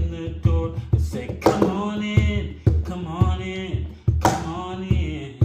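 Music: a male voice singing a sustained, sliding melody over an accompaniment with a steady beat of sharp hits about twice a second.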